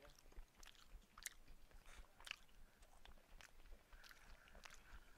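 Faint chewing of a mouthful of food, with soft irregular smacks and clicks of the mouth and teeth.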